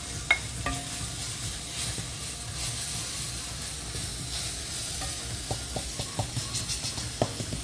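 Garlic, pepper and green seasoning sizzling in hot oil in a stainless steel frying pan while a wooden spoon stirs them, with a steady hiss and a few light knocks of the spoon against the pan, most of them in the last few seconds.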